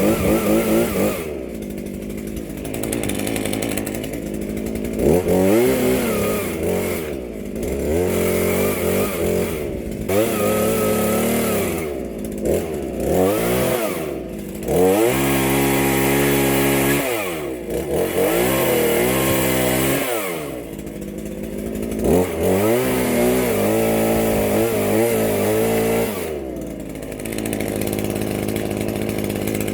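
Chainsaw running and cutting into a large tree limb, its engine revved up to a high pitch and let back down to idle over and over.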